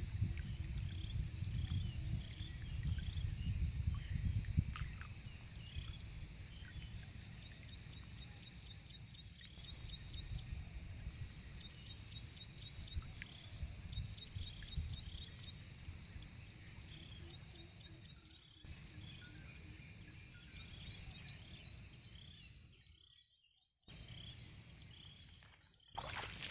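Muddy shallow pond water sloshing and swishing as a hand net is scooped through it for tadpoles, louder in the first few seconds. Many small chirps and a fast ticking call from wildlife sound over it throughout.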